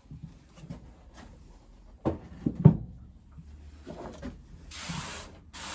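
A chainsaw being set down on a wooden workbench, with several knocks about two seconds in, then lighter handling knocks as the parts are picked up. Two short scraping rubs follow near the end.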